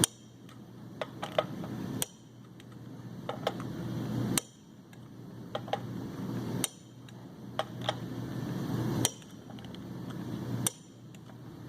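Click-type torque wrench breaking over as the flywheel bolts are torqued, with a sharp click about every two seconds and lighter ratchet clicks in between.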